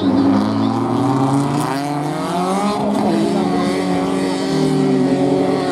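Several BMW E36 rallycross cars' engines racing around the track, heard together at a distance. The engines rise and fall in pitch over and over as they accelerate and change gear.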